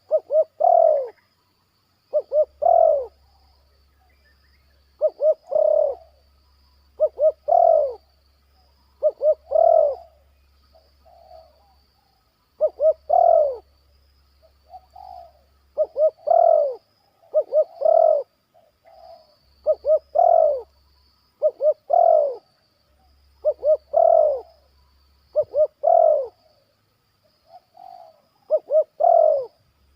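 Spotted dove cooing over and over. Each phrase is two or three short notes followed by a longer arching coo, repeated about every two seconds.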